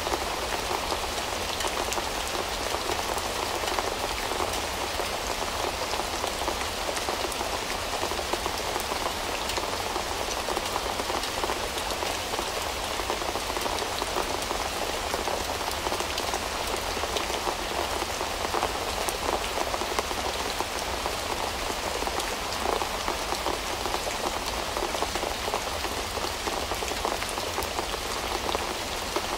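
Steady rain falling, a dense, even patter of drops that holds without change.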